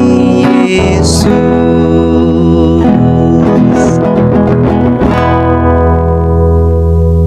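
A man singing a slow worship song to his own acoustic guitar. About five seconds in, the voice stops and a guitar chord is left ringing.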